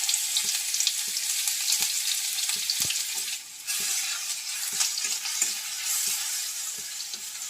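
Grated garlic frying in hot oil in a kadai: a steady crackling sizzle, with short clicks and scrapes of a spatula stirring it. The sizzle drops away for a moment about three and a half seconds in.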